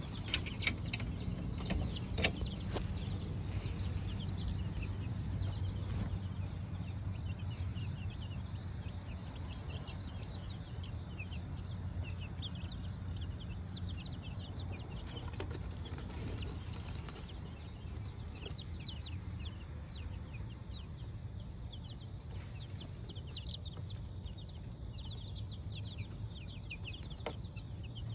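Young chicks peeping, many short high chirps one after another. A few sharp clicks come in the first three seconds.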